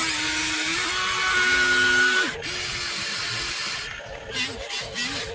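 Radio-controlled excavator's motors and hydraulic pump whining over a steady hiss as the arm lifts the loaded bucket, the whine shifting pitch several times. It gets quieter about four seconds in.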